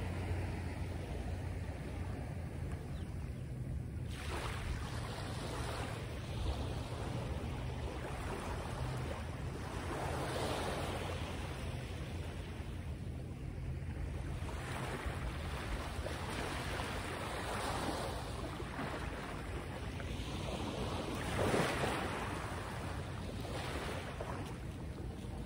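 Wind buffeting the microphone over the wash of waves, the noise swelling and fading every five or six seconds.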